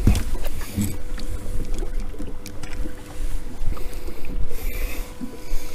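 Wind buffeting the microphone and water sloshing against an aluminium boat hull, with a faint steady hum and a few light knocks.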